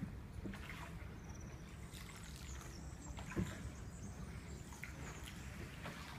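Gondola being rowed, with faint water lapping and trickling around the hull over a steady low rumble, and a single sharp knock about three and a half seconds in.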